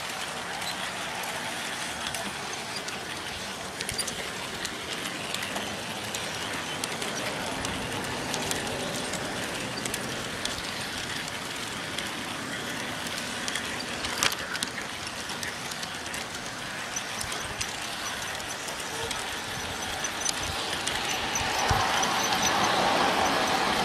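G scale model train running on its track: a steady rolling rumble with occasional clicks, growing louder near the end.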